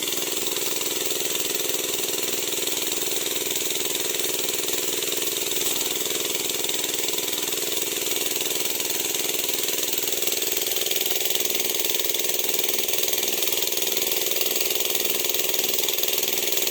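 Engine of a Sanchin MS30 pesticide sprayer machine running steadily at constant speed, with a steady hiss over it.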